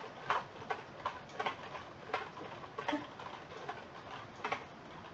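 Typing on a computer keyboard: irregular key clicks, two or three a second.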